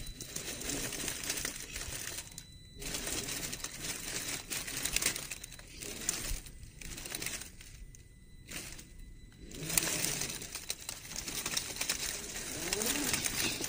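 RC rock crawler with a brushed electric motor crawling over rock and dry leaves: crackling and crunching of the tyres on the leaves in short spurts, with brief stops between them.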